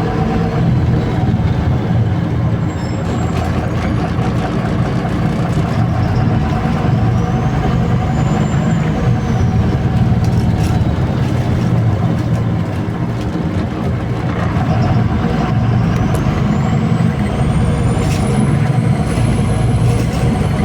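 MAZ-203 city bus in motion, heard from inside: a steady engine drone and road noise, with a faint high whine rising in pitch over the last few seconds.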